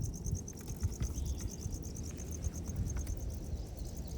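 Insects chirping in a steady, high-pitched pulsing chorus, about eight to nine pulses a second, over a low rumble.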